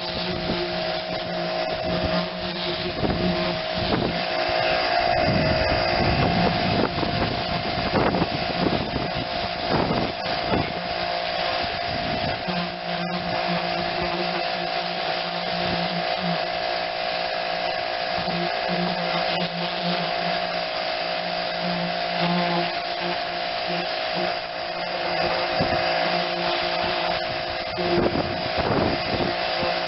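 Pressure washer running steadily, its motor hum under the hiss and spatter of the water jet striking a lawn tractor, the spray noise rising and falling. A single sharp click about 13 seconds in.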